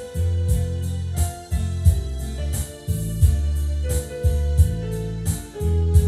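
Yamaha PSR-E443 portable keyboard being played: a simple melody over held bass notes that change every second or so, with a steady percussive beat running underneath.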